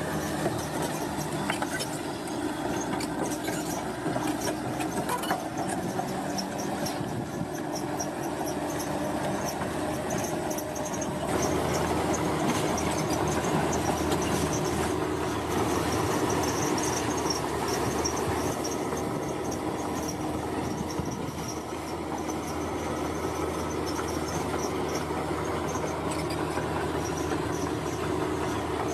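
Komatsu crawler bulldozer working: its diesel engine runs steadily under load while the steel tracks clank. It gets somewhat louder from about eleven to seventeen seconds in.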